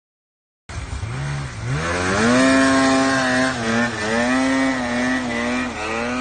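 Snowmobile engine cutting in under a second in, revving sharply as the sled launches, then held at high revs with small dips as it pulls away across the snow.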